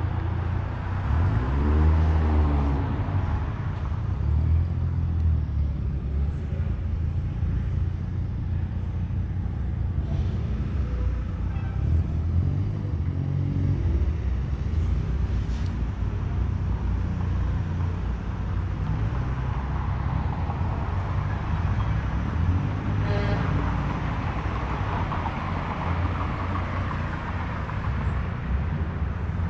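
Car engines and exhausts rumbling low and steady as cars drive slowly past. About two seconds in, one engine's pitch swings briefly up and down.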